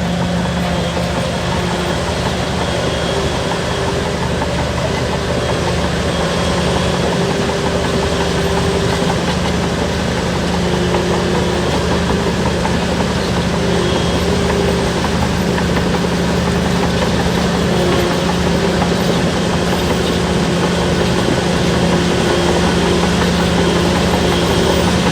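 Diesel engine of a Shantui DH17 bulldozer running steadily at an even, unchanging speed.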